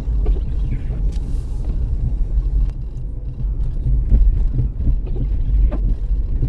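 Dodge Caravan minivan driving, heard from inside the cabin: a steady low rumble with a few faint clicks and knocks over it.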